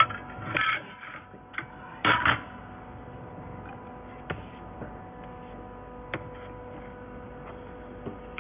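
Fiber laser welding machine with a steady hum, two short hissing bursts in the first few seconds and a few sharp single clicks scattered through the rest.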